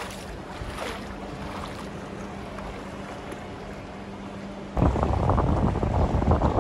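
Steady faint outdoor background noise with a low hum, then about five seconds in a sudden switch to loud wind buffeting the microphone.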